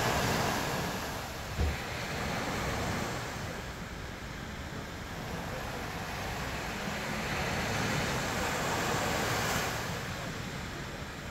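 Ocean surf washing onto the beach, swelling and easing in long washes, with wind on the microphone and one brief low bump about a second and a half in.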